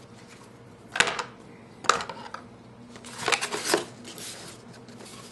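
Cardboard phone packaging being handled: the cardboard tray is set back into its box with two sharp taps about a second apart, then about a second of scraping and sliding as the cardboard pieces are pushed together.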